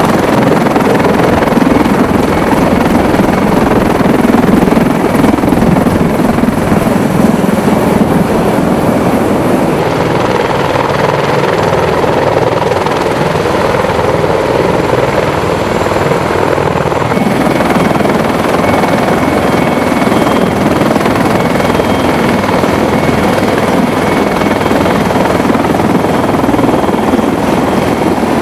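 Loud, steady rotor and turbine noise of CH-53E Super Stallion three-engine heavy-lift helicopters running. The sound changes character about ten seconds in and again at about seventeen seconds, and a faint high whine comes in with the second change.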